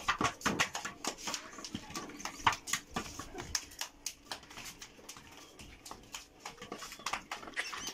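A small plastic ball kicked around on a concrete floor, with footsteps: irregular short taps and thuds.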